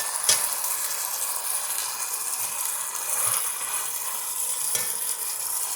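Oxtails sizzling in hot bacon grease in a Dutch oven, a steady frying hiss, with a sharp click of a utensil against the pot just after the start and a fainter one near the end.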